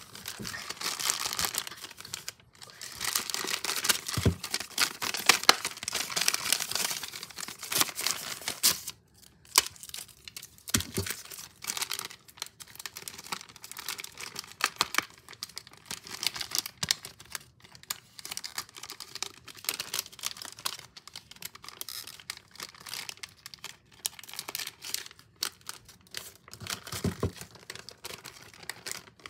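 Clear plastic zip-lock bags crinkling as they are handled and opened, with small packaged items rustling inside. The crinkling is dense for about the first nine seconds, then comes in sparser bursts with a few light knocks.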